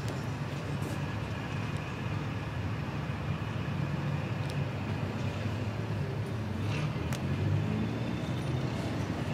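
Steady low rumble of vehicle and traffic noise, with a few faint clicks.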